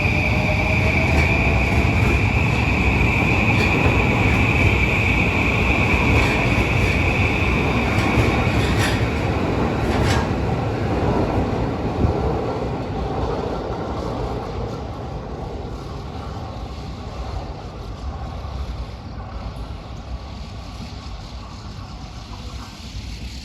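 Electric train running past on the line, a heavy rumble with a steady high-pitched whine for the first ten seconds or so, then slowly fading as it moves away.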